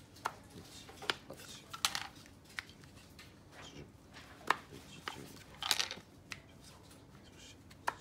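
Wooden panels of a Japanese yosegi-marquetry puzzle box (himitsu-bako) being slid and pushed into place by hand. There are sharp wooden clicks at irregular intervals, about one a second, with short scraping slides between them.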